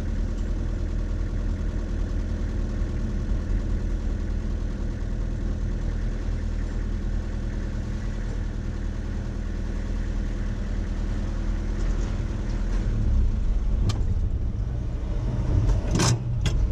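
Old diesel bee truck's engine running steadily, heard from inside the cab as the truck moves slowly. It gets louder about thirteen seconds in, and there are a few sharp knocks near the end.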